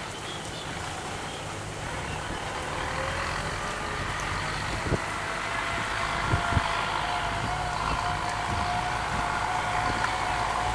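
A vehicle engine running steadily and getting gradually louder, with a steady whine over its low hum. A few short knocks sound about halfway through.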